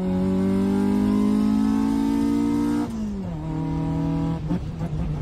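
Honda car's engine accelerating, heard from inside the cabin: the pitch climbs slowly for nearly three seconds, drops at a gear change, then holds steady for about a second before breaking off.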